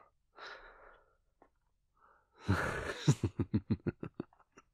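A man's soft breath out, then about two and a half seconds in a short breathy laugh: a quick run of about ten huffs lasting roughly a second.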